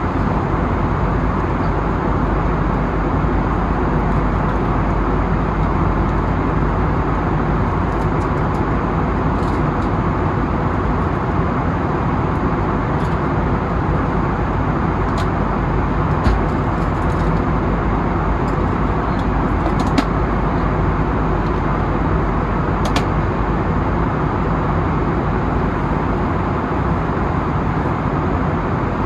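Steady cabin noise of an Airbus A320neo in flight, a continuous rush of engine and airflow noise, with a few faint clicks.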